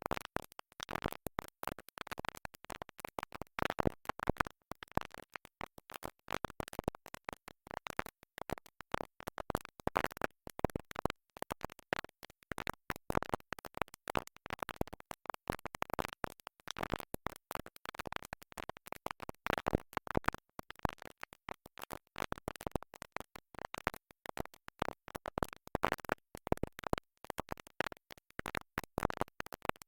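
A stuck record skipping: a short scrap of music cut into rapid, choppy stutters with scratchy noise, going over and over without moving on.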